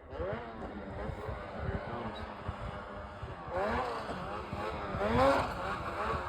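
Two-stroke snowmobile engine revving hard on a hill climb, its pitch swooping up and down several times as the throttle is worked, loudest a little after five seconds in.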